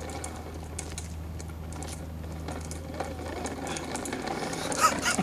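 Plastic wheels of a toddler's push-along toy train walker rattling and clicking as it rolls over concrete, over a steady low hum. A brief louder sound comes near the end.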